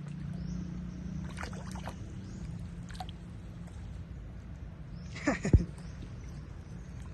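Pool water sloshing and splashing as monkeys move about in it, with a sharper splash and thump about five and a half seconds in.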